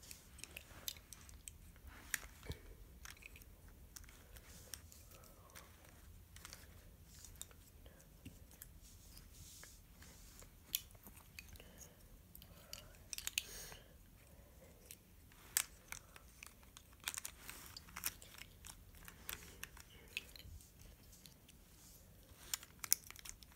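Plastic pieces of a Calvin's Puzzle 3x3x5 cube clicking and snapping as they are picked up and fitted back onto the cube during reassembly: scattered faint, irregular clicks.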